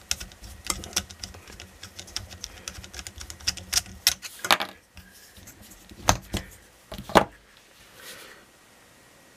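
Quick irregular plastic clicks and rattles of a GoPro being handled on its plastic buckle mount, then a few louder clacks about six to seven seconds in as the camera is taken off the mount.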